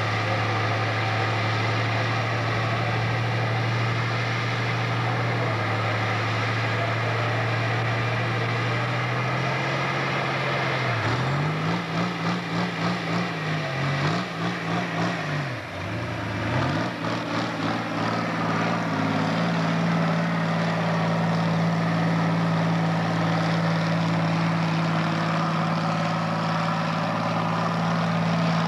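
Pulling tractor's engine running at steady revs, then revved up and down in quick blips for a few seconds about halfway through, then held at steady, higher revs as the pull gets under way.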